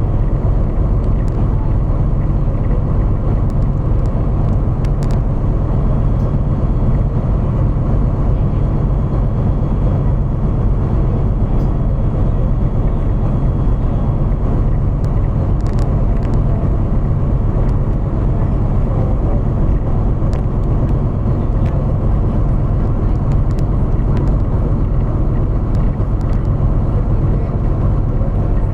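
Steady low rumble of a motor vehicle driving along, engine and road noise without a break.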